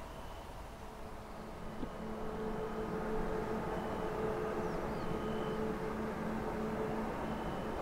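A 2TE116 diesel locomotive working a freight train up a grade, heard approaching before it comes into sight: a steady low engine hum over a rumble that grows louder from about two seconds in.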